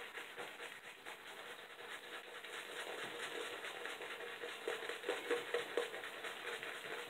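Shaving brush working soap lather over a bearded face, a steady, quiet scratchy swishing with a few louder strokes about five seconds in.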